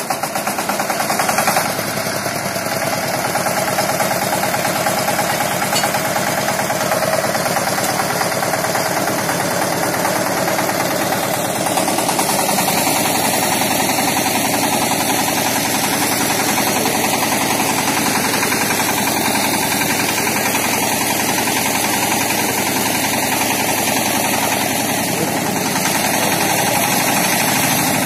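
Kirloskar Mega T 15 power tiller's single-cylinder diesel engine running steadily, driving the sprayer pump that feeds a hose spraying sanitiser.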